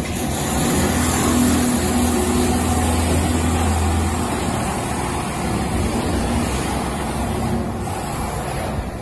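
Heavy machinery running in a CNC machine factory: a dense, steady mechanical noise with a low hum that stops about four seconds in.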